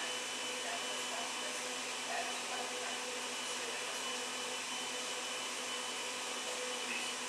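Steady ambient noise: an even hiss with faint, steady humming tones and no distinct events.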